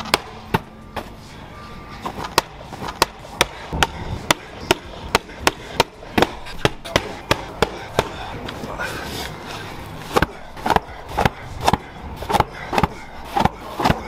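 Repeated sharp thuds of a rubber medicine ball hitting a brick wall and the turf, with a short lull about eight seconds in.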